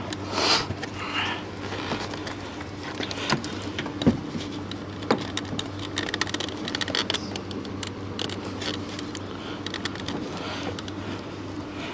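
Hands working a car door's plastic wiring connector and trim, giving scattered small plastic clicks and ticks and rustling of the felt door liner, over a steady low hum.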